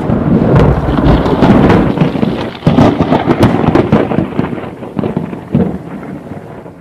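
Thunder: a loud, crackling rumble with repeated sharp cracks and surges, rolling on and then fading away near the end.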